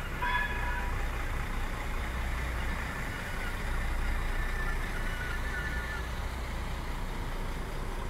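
Diesel-electric passenger train running at the station with a steady low engine rumble; a short multi-tone horn note sounds and cuts off within the first second.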